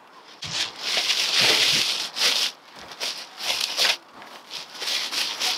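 Large plastic sack full of compost rustling and crinkling in repeated bursts as it is gripped and hauled, with a few dull thumps of its heavy load shifting near the start.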